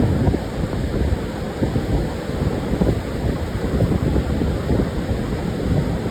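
Pacific surf washing on a sandy beach, heard as a steady low rumble, with wind buffeting the microphone.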